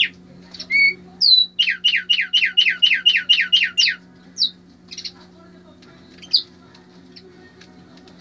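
Caged tumbayeguas songbird singing: a few single high chirps, then a fast run of about eleven falling notes lasting some two seconds, then scattered single calls.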